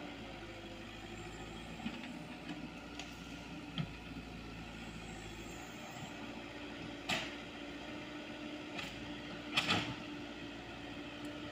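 Komatsu PC78US mini excavator's diesel engine running steadily while it digs. Several short, sharp knocks from the machine's work come over it, the loudest about two-thirds of the way through and again near the end.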